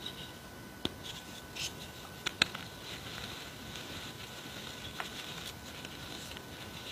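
Powdered gym chalk squeezed and crumbled by hand in a plastic tub: a soft, crunchy powder hiss broken by a few sharp little cracks, the loudest about two and a half seconds in.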